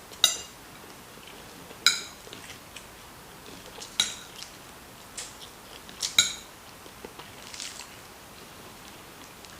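Cutlery clinking against a plate while eating: four sharp ringing clinks about two seconds apart, with quieter scrapes between them.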